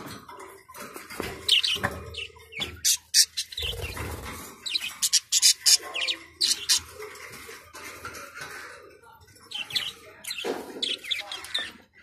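Parrot calling in short, sharp chirps and squawks, repeated at irregular intervals with brief pauses between them.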